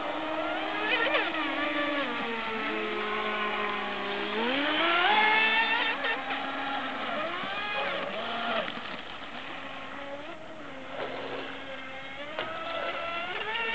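Electric motors of two radio-controlled racing boats whining at high speed, their pitch rising and falling as the throttle is worked, the two tones overlapping. They ease off for a few seconds past the middle, then pick up again near the end.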